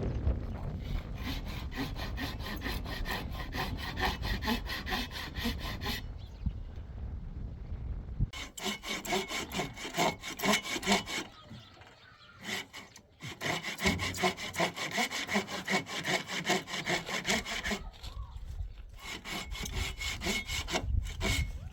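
Hand saw cutting wood in quick, even back-and-forth strokes, about four a second, stopping briefly a few times and starting again.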